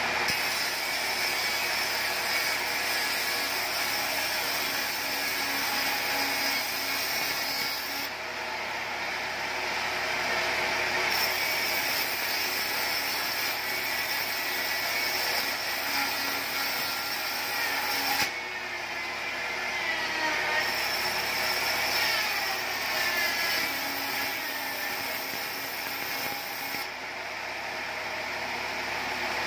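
Vertical band saw running and ripping teak into thin roofing battens: a steady loud saw noise as the strips are fed through. The high hiss thins out briefly three times.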